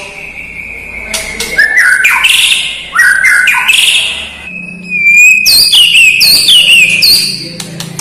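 White-rumped shama (murai batu) singing loudly. The song opens with a long, slightly falling whistle, then turns to harsh, buzzy notes. After a short break, a held whistle leads into a quick run of high down-slurred whistles that fades near the end.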